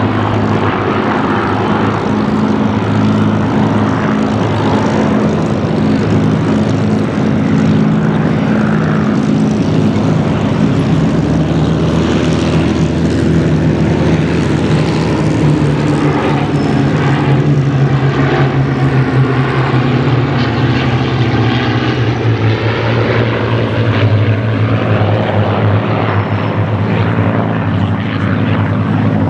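Six Rolls-Royce Merlin-engined Spitfires and Hurricanes flying by in formation: the steady drone of several V12 piston engines and propellers together. The engine note drops in pitch about halfway through as the formation passes.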